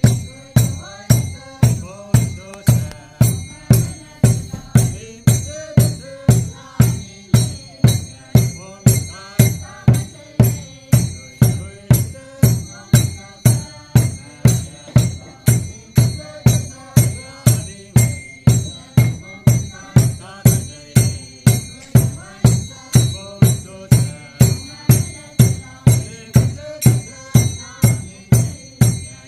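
Naga dance music: a drum beaten in a steady, even beat of about three strokes every two seconds, with dancers' voices chanting and a rattling jingle over the beat.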